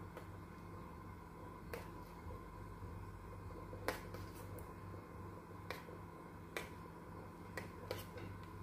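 Steel spoon clinking lightly against the sides of a pressure cooker pot while soup is stirred: several scattered sharp clicks, irregularly spaced, over a faint steady hum.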